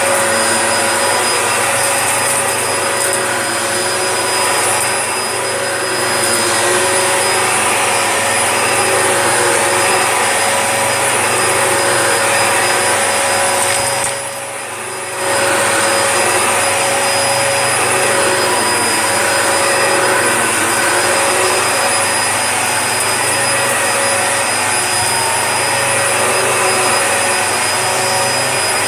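Dyson DC01 upright vacuum cleaner running steadily, with a motor whine of several steady tones, as it picks up a test mess. About halfway through the sound drops for about a second, then comes back at full level.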